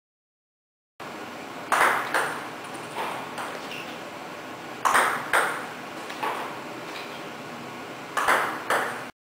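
Table tennis serves: a ball sharply struck by a paddle and bouncing on the table, three times over, each serve a quick pair of loud clicks with a softer tap after.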